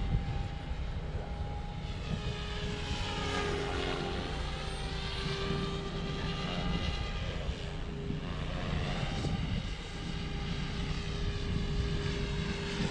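OMPHOBBY M4 Max electric RC helicopter in flight: the rotor blades and motor give a steady whirring hum whose pitch bends down and back up a few times as it manoeuvres. Wind rumbles on the microphone underneath.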